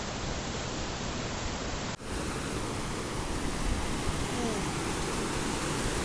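Rushing water of a shallow rocky stream cascading over boulders: a steady, even rush of noise that briefly cuts out about two seconds in.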